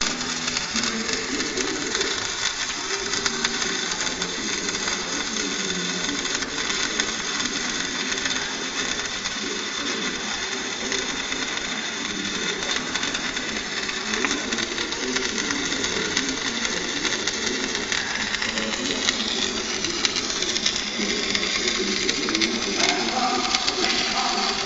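Stick welding arc (coated-electrode, SMAW) crackling and sizzling steadily as a bead is laid.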